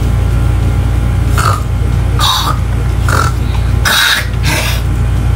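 A child imitating a pig with the voice: about five short throaty noises over a few seconds, over a steady low hum.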